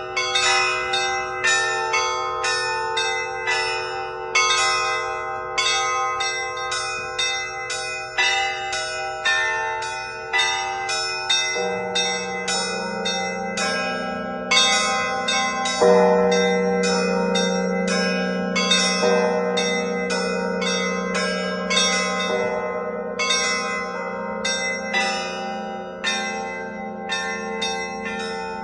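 Russian Orthodox church bells rung by hand: rapid, interlocking strikes on small high-pitched bells throughout, over a steady pattern of middle bells. Deeper, larger bells join about twelve seconds in, with a heavy stroke a few seconds later.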